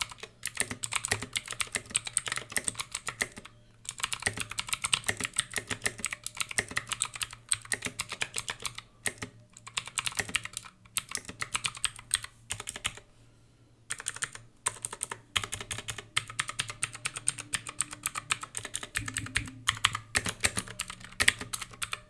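Dierya DK63 60% mechanical keyboard with clicky blue switches and thick aftermarket keycaps, typed on fast in runs of clicks broken by a few short pauses.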